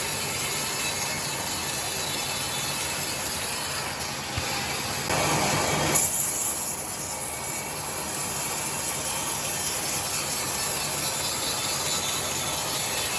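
Sawmill saw running steadily while ripping timber into 2 cm boards, with a louder stretch about five seconds in as it cuts, ending in a sharp peak.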